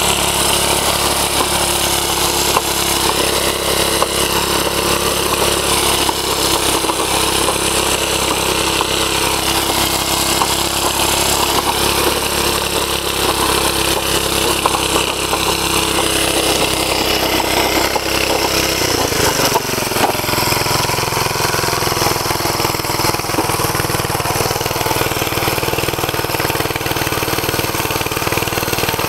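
1949 Bready walk-behind tractor's engine running steadily while it pulls a disc harrow through soil. Its note changes about two-thirds of the way through.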